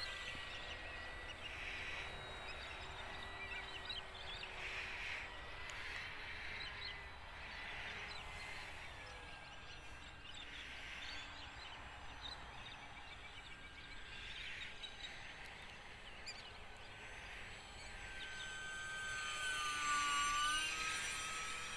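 UMX Cessna 182 RC model plane's electric motor and propeller whining, faint at first, then louder as it makes a low pass near the end, its pitch dropping as it goes by.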